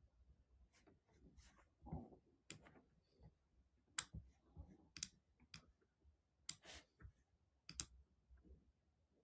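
Faint, irregular clicks and taps, about a dozen, spaced unevenly. The sharpest comes about four seconds in, over near silence.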